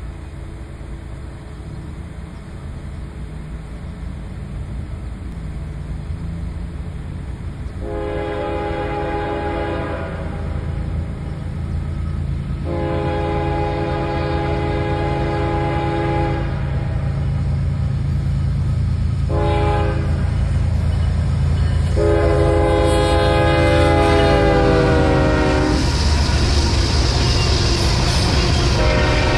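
Freight train horn sounding the long-long-short-long grade-crossing signal over the low rumble of the approaching train, which grows steadily louder. Near the end the train is passing close by, its covered grain hopper cars rolling past.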